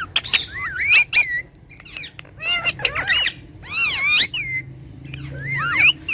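Pet parrots calling and chattering: several bursts of high, sliding squawks and whistles.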